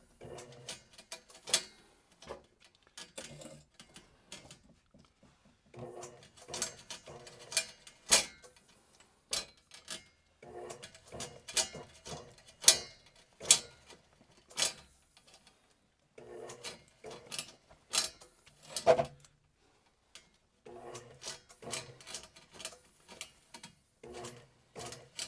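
Power drain auger run in short bursts: the motor spins the drum while the steel snake cable clicks, rattles and rubs as it is worked against a clog in the drain line. The loudest sounds are sharp, irregular cable knocks.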